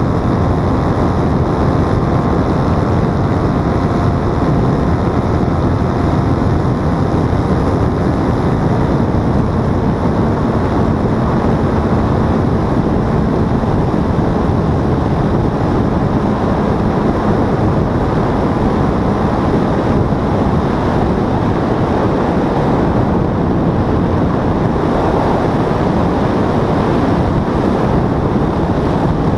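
Paramotor engine and propeller running steadily in flight, heavily mixed with wind buffeting the microphone.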